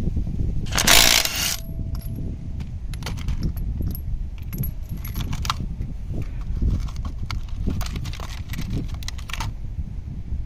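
A cordless Milwaukee impact wrench runs in one short burst of just under a second on a wheel's lug nut. Then a string of small metallic clicks and clinks follows as the lug nut and a chrome wheel lock are handled.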